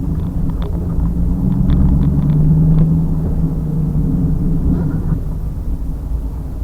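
2000 Pontiac Trans Am Firehawk's LS1 V8 running at a steady, low, held engine speed, with a few light clicks in the first three seconds.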